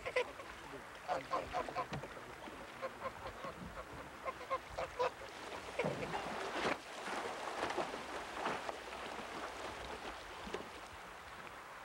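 White domestic geese honking, many short calls in quick succession for the first five seconds or so, then water splashing for a few seconds.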